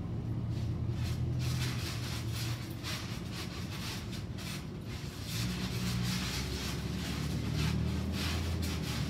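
A trampoline being jumped on, its springs and mat making short, irregular creaks and rustles with each bounce. A steady low hum runs underneath, shifting slightly in pitch about five seconds in.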